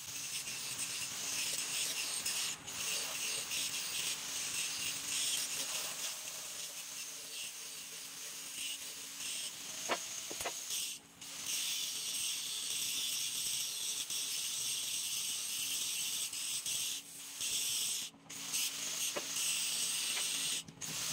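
Handheld angle grinder with its disc grinding on a steel shaft-hub flange: a steady hissing grind that breaks off briefly a few times as the disc leaves the metal.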